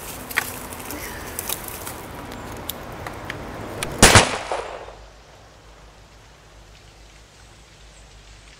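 Scattered small clicks and rustles, then a single loud gunshot about four seconds in, with a short tail. After it a soft, steady patter of rain.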